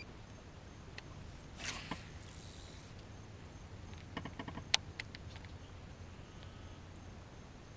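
Faint handling sounds from fishing gear on a kayak: a soft swish about two seconds in, then a quick run of small clicks and one sharp click a little before the five-second mark, over a low steady background hum.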